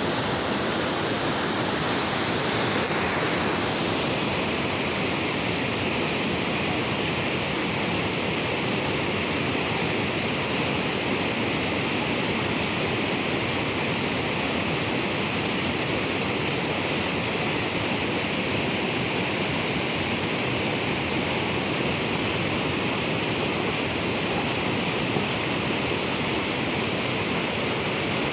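River water rushing and pouring, a steady loud rush.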